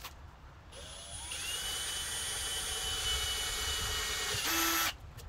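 Power drill spinning up with a rising whine about a second in, then running steadily as it bores a hole through the car's battery cover. It stops abruptly shortly before the end.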